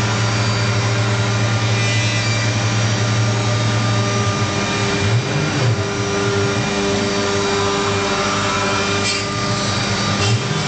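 CNC router running and cutting wood: a steady machine drone with a low hum and grinding cutting noise, the hum wavering briefly about halfway through and again near the end.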